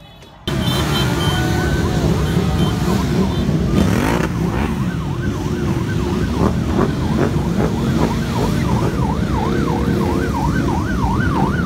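A pack of sport motorcycles riding past together, engines running with some revving, starting abruptly about half a second in. From about five seconds in, a siren rises and falls in quick yelps, several times a second, over the engines.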